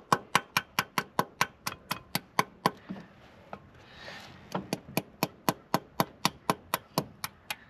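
Rapid light metal-on-metal hammer taps, about five a second, on a tool set against a broken bolt stuck in an engine, shocking it to work it loose. The tapping stops for about a second and a half midway, then starts again.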